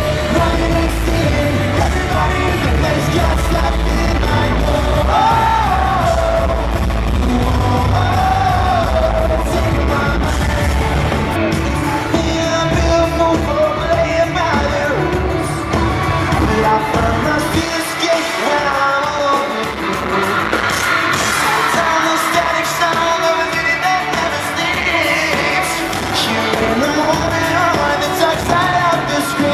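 Live pop-rock band playing in an arena: a sung melody over electric guitars, bass and drums. A little past halfway the bass and drums drop away for several seconds, leaving voice and guitars, and they come back near the end.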